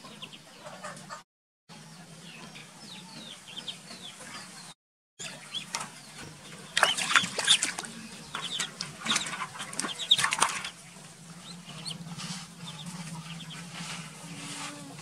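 Ducklings peeping, a string of short, high, falling cheeps, with louder splashing of water in a basin twice near the middle.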